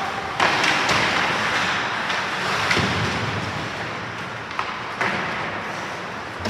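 Ice hockey game noise in a rink: a steady rush of sound that jumps up about half a second in, with a few sharp knocks scattered through, like sticks and puck striking.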